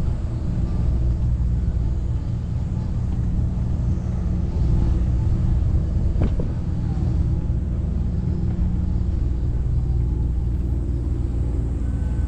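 Steady low rumble of outdoor ambient noise, with a single sharp click about six seconds in.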